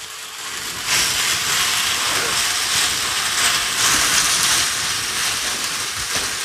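Raw chicken pieces sizzling in a hot frying pan of onion-tomato masala as they are stirred with a wooden spatula. The sizzle swells about a second in and then holds steady.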